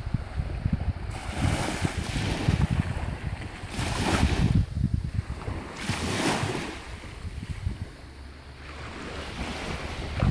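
Small waves washing up a sandy beach, rising and falling in surges every few seconds, with wind buffeting the microphone.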